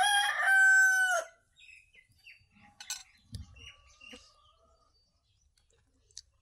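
A rooster crowing once, a loud call of about a second and a half at the start that ends on a held note and then drops away. Faint small clicks and taps follow.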